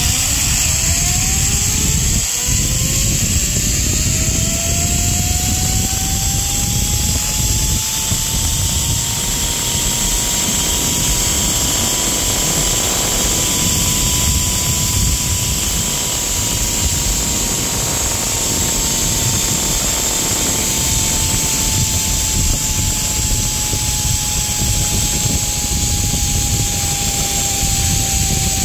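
Zipline trolley pulleys whirring along a steel cable: a whine that climbs in pitch over the first several seconds as speed builds, then holds and slowly falls as the ride goes on. Heavy wind rushes on the microphone throughout.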